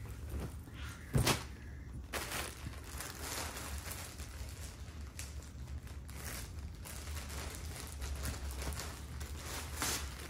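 Clothing and plastic packaging rustling and crinkling as garments are handled and a plastic-bagged item is opened, with one sharp knock about a second in.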